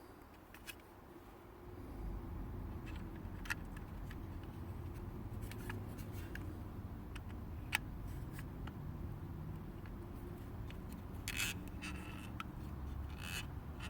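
Scattered light clicks and scrapes of small plastic light-switch and bulb-socket parts being handled, over a steady low rumble that starts about two seconds in.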